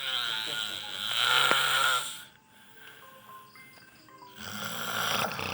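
Loud snoring, two long snores: one over the first two seconds and another starting about four and a half seconds in, each a noisy breath with a low rattling flutter.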